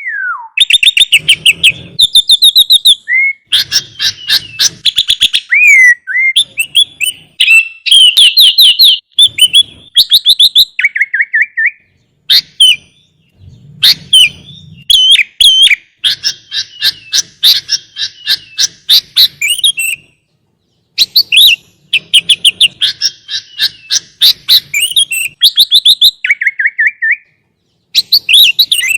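Sooty-headed bulbul (kutilang) singing at full volume in long bursts of rapid chattering trills and short whistled phrases, broken by brief pauses.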